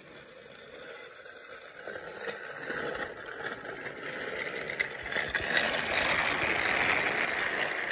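Battery-powered toy train whirring and rattling along plastic track: the small motor and wheels grow steadily louder as it approaches and are loudest near the end as it runs close past.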